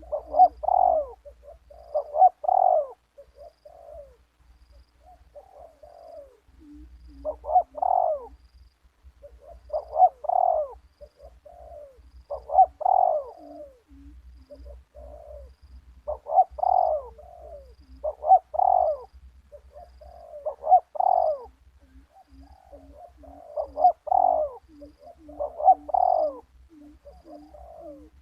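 Spotted dove cooing, its phrase repeated about every two seconds, with a softer run of short, lower notes in the gaps.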